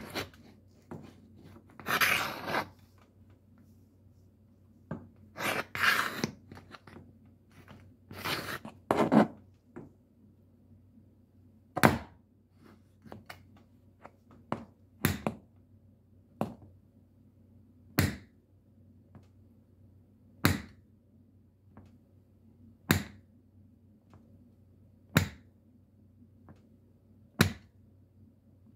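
Metal shoe taps scraping and clicking: a few longer scrapes in the first ten seconds, then single sharp taps about every two and a half seconds with fainter ticks between.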